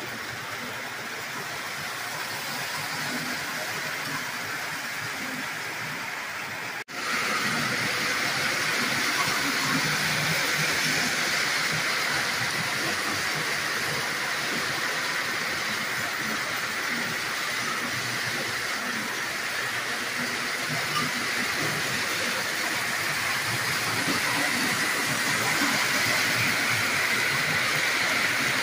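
Lionel O-gauge model trains running on three-rail track: a steady rolling rumble of wheels and motors with a hiss. It drops out sharply for a moment about seven seconds in and comes back louder.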